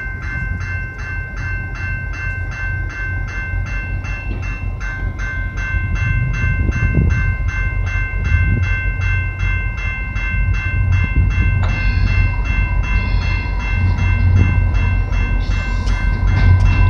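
Level-crossing warning bell ringing in a fast, even rhythm, over the low rumble of an approaching VIA Rail F40PH diesel locomotive that grows steadily louder. About three quarters of the way through, a steady higher tone joins in.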